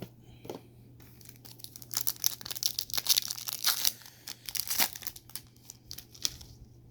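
Foil trading-card pack wrappers crinkling as they are handled, with a dense crackle that is busiest from about two seconds in until near the end.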